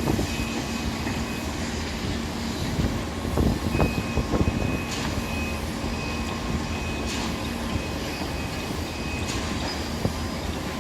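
Construction site din: heavy machinery running steadily, with a cluster of knocks and clanks about a third of the way in and sharp clicks now and then.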